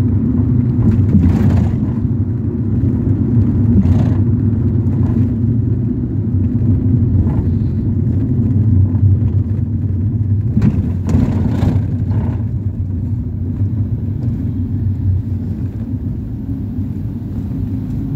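Ford Transit minibus on the move, heard from inside the passenger cabin: a steady low engine and road rumble, with a few brief knocks or rattles, two close together about two-thirds of the way through.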